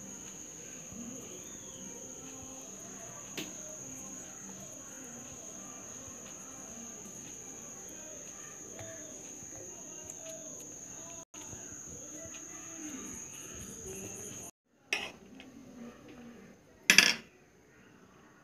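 A steady high thin whine over a faint low background murmur, with a light click a few seconds in. Near the end come two sharp knocks, the second the loudest.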